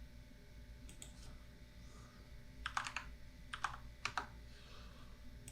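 Faint, scattered clicks of a computer keyboard and mouse, coming a few at a time in small clusters, over a low steady hum.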